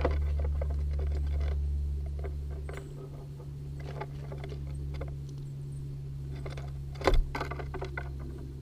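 Eastern gray squirrel scrabbling and tapping on a wooden fence rail right beside a GoPro as it takes peanuts: a run of small clicks and scratches, then one loud knock about seven seconds in, when the camera is bumped. A steady low hum runs underneath.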